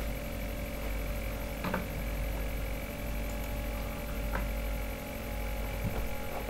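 Steady electrical hum with background hiss (room tone of the recording), with a few faint clicks.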